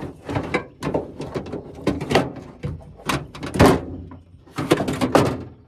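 Cable-driven window regulator for a 2003 Honda Element being worked into a car door through the access hole: irregular metal knocks, clunks and scrapes as the regulator's track and cables bump against the sheet-metal inner door panel. The loudest knocks come about three and a half and five seconds in.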